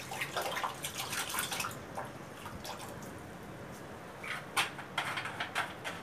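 Water splashing and sloshing in a plastic bucket as the handheld washing machine is worked in it, busiest for the first two seconds, then a few sharp knocks near the end.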